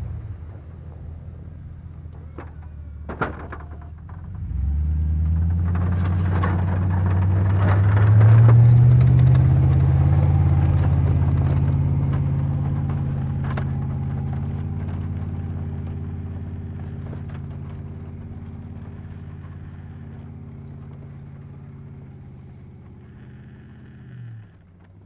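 Chevrolet Silverado 2500HD pickup engine pulling hard as the truck pushes snow with its V-plow; it rises about four seconds in, is loudest a few seconds later, then fades steadily as the truck moves away. A couple of sharp knocks come just before the engine picks up.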